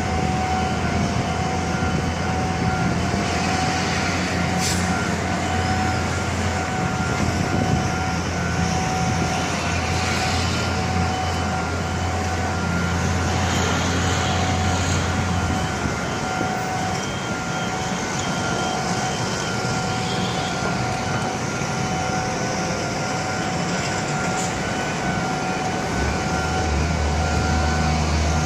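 Railway level-crossing warning bell ringing on one steady pitch, over a low engine rumble that drops away about halfway through and comes back near the end.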